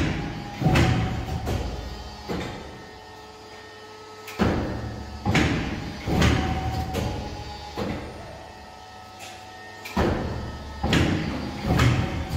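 Fuji 1320-4P paper and board cutting machine running through repeated cutting cycles: three bunches of heavy mechanical clunks and knocks with a low rumble, a few seconds apart, at the start, about four seconds in and about ten seconds in.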